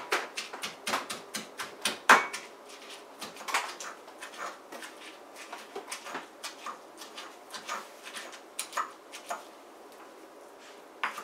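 Stone pestle pounding celery and garlic in a stone mortar: a run of sharp knocks, about three a second, the loudest ones in the first couple of seconds, thinning out and fading near the end.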